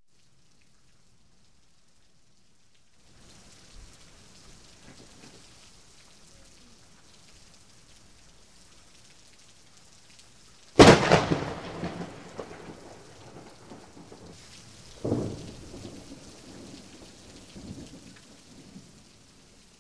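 Thunderstorm: steady rain begins a few seconds in, then a sharp, loud thunderclap about eleven seconds in that rumbles away, and a second, weaker peal of thunder about four seconds later.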